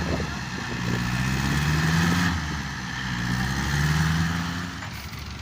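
Excavator diesel engine running, its pitch and level rising and falling every second or two as the machine works.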